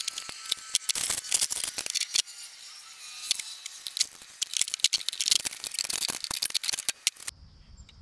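Brass air fittings and a braided air hose being handled, clinking and rattling in quick, irregular clicks; the sound stops suddenly near the end.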